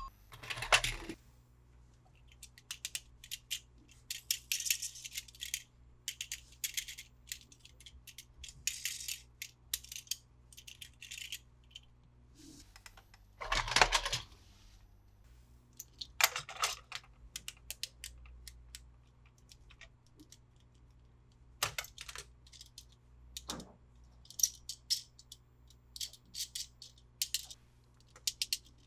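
Hard plastic toy parts clicking, rattling and knocking as they are handled, with short bursts of crinkly packaging rustle. The loudest knocks come about a second in and about halfway through.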